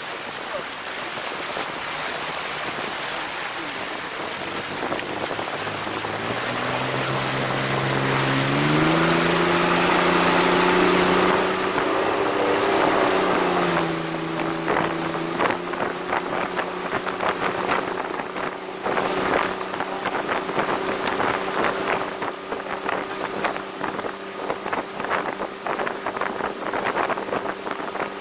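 Motorboat engine of a 1985 Sea Sprite runabout speeding up, its pitch climbing in steps over several seconds, then running steadily at speed with rushing wind and water. In the second half, rapid irregular knocks as the hull slaps across the chop.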